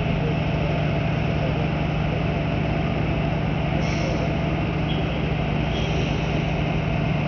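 Diesel engine of a terminal tractor (yard shunter) running steadily as it tows a semi-trailer: an even, low-pitched hum, with two brief high squeals about four and six seconds in.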